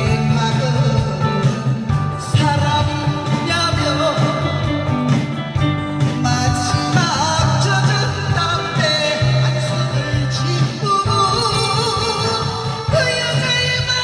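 A voice singing over instrumental accompaniment with a strong, steady bass.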